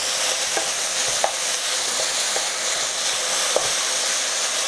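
Sliced chicken breast and julienned ginger sizzling steadily in hot oil in a non-stick wok, stirred with a wooden spatula that gives a few light scrapes and taps against the pan.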